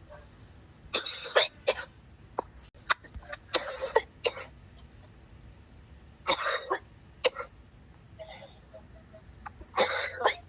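A person coughing hard in fits of several coughs each, about four fits with short pauses between them.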